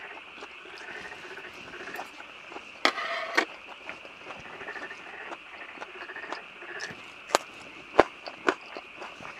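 Eating raw fish with chopsticks: sharp clicks of chopsticks and dishes, the loudest about eight seconds in, and a short rustle about three seconds in. Underneath runs a steady high chorus of night creatures from outside the tent.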